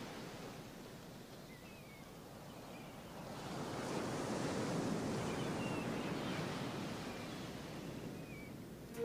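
Ocean surf washing onto a sandy beach: a wave swells about three seconds in and slowly dies away, with a few faint high chirps now and then.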